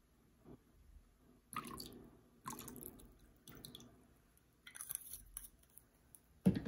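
Malibu rum glugging from the bottle into a bowl of dissolved orange gelatin, coming out in several irregular splashy gushes. A sharp thump follows near the end.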